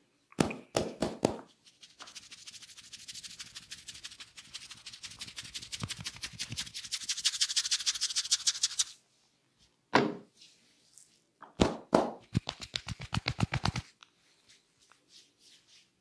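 Barber's hands working on a man's head and hair in a head massage. First a few sharp slaps, then a long fast rhythmic rubbing through the hair that grows louder. Then a single slap and a quick run of about eight slaps a second.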